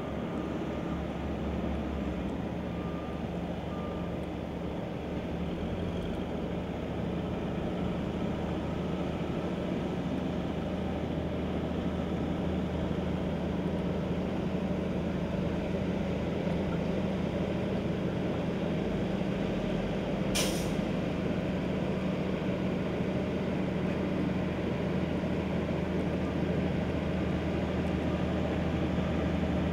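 Dump truck's diesel engine running steadily while its tipper bed is raised to dump a load of earth, slightly louder as it goes. A short sharp hiss of air comes about two-thirds of the way in.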